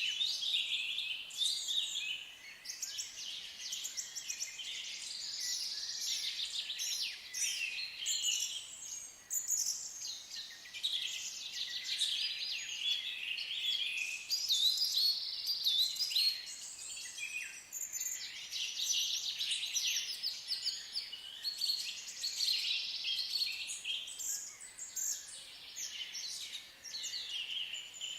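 Several songbirds singing at once: a dense chorus of overlapping chirps, trills and warbles that starts abruptly.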